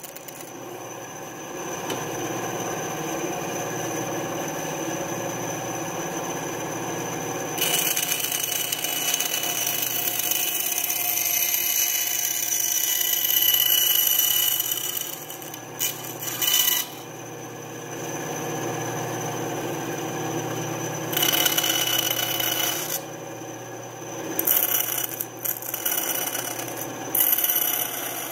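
Benchtop bandsaw running steadily while its blade cuts thin lite plywood for model-aircraft wing ribs: a hissing rasp rises over the motor hum with each pass, one long cut about eight seconds in, then several shorter ones.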